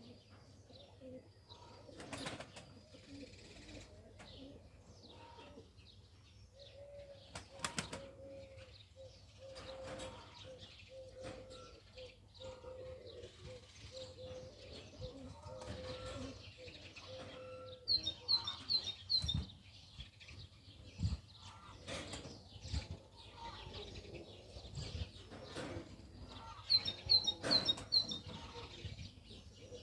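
Ödemiş Dolap pigeons in wooden breeding lofts: occasional wing flapping and cooing. Twice a bird gives a short run of quick, high chirps.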